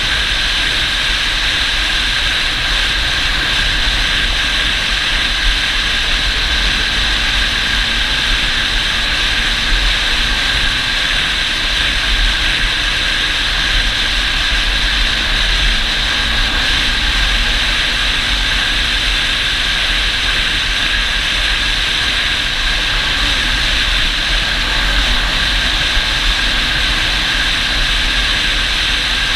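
ATV engine running steadily under a continuous rush of wind on the microphone, with a deep rumble and a steady high whine and no let-up.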